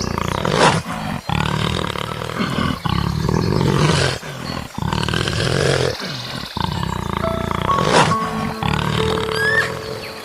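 A large animal roaring again and again, with background music.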